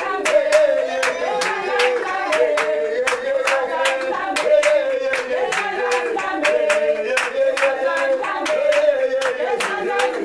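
Congregation singing a worship song with steady rhythmic hand clapping, about three claps a second.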